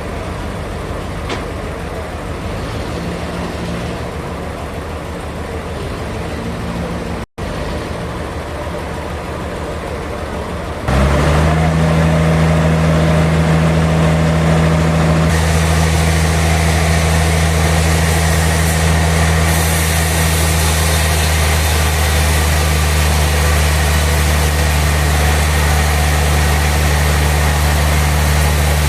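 Sawmill machinery running steadily. About eleven seconds in, a louder steady low engine-like hum cuts in, and a few seconds later a higher hiss joins it.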